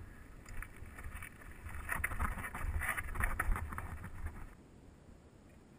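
Mountain bike clattering over rough, rocky trail: a dense run of knocks and rattles, loudest in the middle and easing off about four and a half seconds in. Wind rumbles on the microphone throughout.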